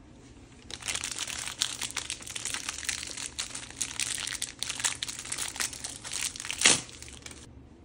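Crinkly plastic packet being handled and pulled open by hand: a steady crackling of wrapper that starts about a second in, with one sharp, louder tear near the end.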